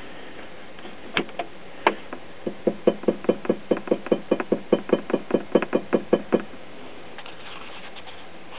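Quick, light tapping on the glass neck of a CRT picture tube, about five knocks a second. There are two single taps, then a longer run that stops a little after halfway. The tapping is done to clear a G1-to-cathode short in the tube.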